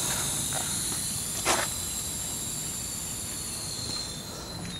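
Air hissing out of a tire's open valve stem with the Schrader valve core removed, slowly fading as the tire goes flat. A single sharp click about a second and a half in.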